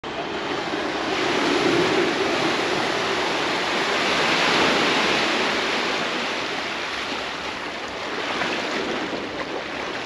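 Sea waves washing onto a beach: a steady rush of surf that swells twice in the first five seconds, eases off, then swells again near the end.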